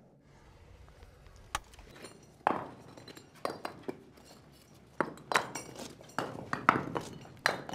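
Irregular knocks and clinks, about a dozen, each with a short echo, coming closer together and louder in the second half.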